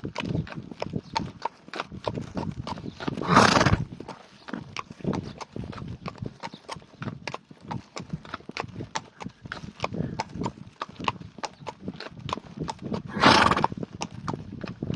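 A horse sneezes twice, loud forceful blasts of breath through its nostrils, one a few seconds in and one near the end. Between them come many short clicks and knocks.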